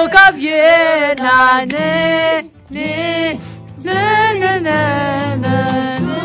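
A voice singing a melody in phrases over steady accompaniment, pausing briefly about two and a half seconds in.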